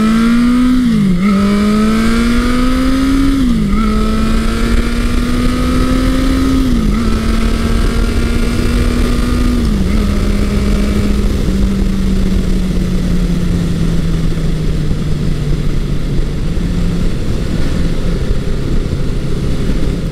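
1982 Honda CB900 Custom's inline-four engine running through a Mac 4-into-1 exhaust, accelerating up through the gears. The engine note climbs and drops sharply at each of four upshifts in the first ten seconds, then holds a steadier note that falls slowly as the bike settles into cruising.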